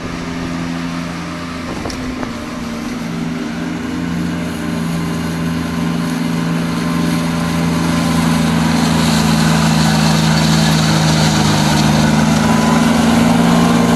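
Gianni Ferrari PG280DW ride-on mower's 28-horsepower engine running steadily under load, with the 3x1 flail deck cutting long grass. It grows louder as the mower comes close.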